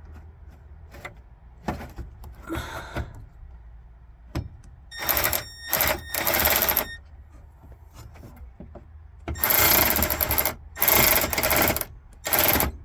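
Power screwdriver or cordless drill running screws in, in about six short bursts of whirring: a group of three about five seconds in and another three from about nine seconds in, with light clicks of handling between.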